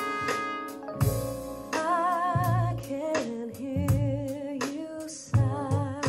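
Music played back through a Dockin D Fine portable Bluetooth speaker as a sound test: a held horn chord gives way about a second in to a singer's wavering voice over drums.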